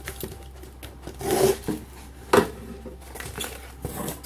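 Cardboard mailer being pulled apart and its tape torn loose: a rasping rip about a second in, a sharp snap a moment later, then light taps and rustles of cardboard being handled.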